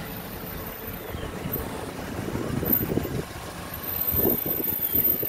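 A vehicle's engine and tyres rumbling as it rolls slowly along, heard from inside the cabin, growing a little louder toward the end.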